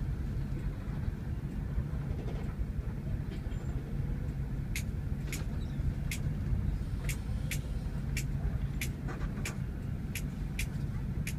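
Cabin noise of a bus's diesel engine rumbling steadily as it crawls in traffic. From about halfway in, a sharp regular ticking comes in at about one and a half ticks a second.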